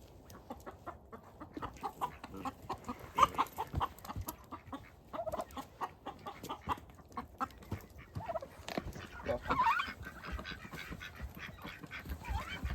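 A Rhode Island Red hen clucking and squawking as she is chased to be caught, over a steady run of quick scuffling and rustling.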